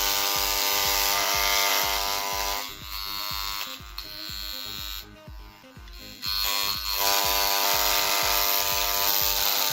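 Parkside electric engraving pen running, its vibrating needle making a steady loud buzz. The buzz drops quieter about three seconds in and comes back loud about three seconds later, as the intensity knob changes how hard the needle strikes; at the end it is turned up to full.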